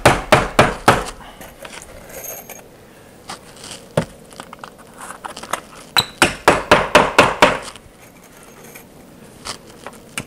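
Claw hammer driving nails through the slots of vinyl J-channel trim: a quick run of sharp taps at the start, a single blow about four seconds in, then a longer run of about eight taps about six seconds in.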